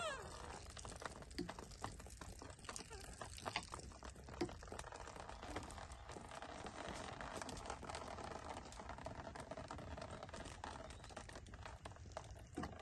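Faint trickling and dripping of bath water with scattered small clicks and taps. A short squeak falling in pitch right at the start.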